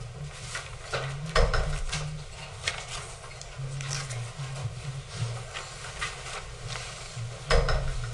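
Lecture-theatre bustle as the audience packs up: scattered knocks, clicks and clatter of bags, desks and seats, with two louder thumps about a second and a half in and near the end.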